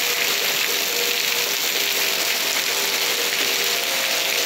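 Heavy rain pouring down and running off the gutters in a loud, steady hiss. Beneath it, outdoor tornado warning sirens sound as faint steady tones.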